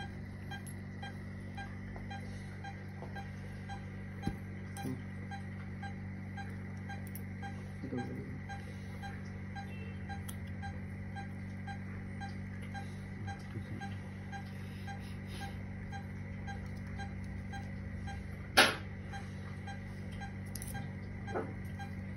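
Surgical patient monitor giving regular soft beeps, in time with the pulse of an anaesthetised dog, over a steady low machine hum. One sharp click about eighteen seconds in.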